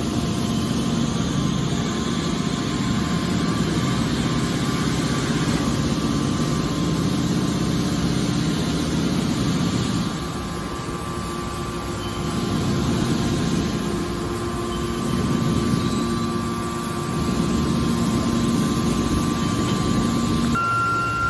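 Hydraulic aluminum can baler running: a steady machine drone from its motor and pump, easing off briefly about ten seconds in, with a new steady whine joining near the end.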